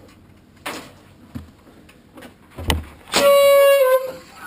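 Air horn hidden under an office chair blasting once for just under a second, set off as someone sits on the chair: a single loud blaring tone that sags slightly in pitch as it cuts off. A thump of the chair comes just before it.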